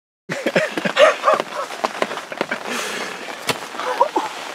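Wild turkeys calling in quick, short, bending notes over a steady patter of rain, with one sharp knock about three and a half seconds in. The calls come straight after an arrow has struck a tom, so they are plausibly alarm calls from the flock.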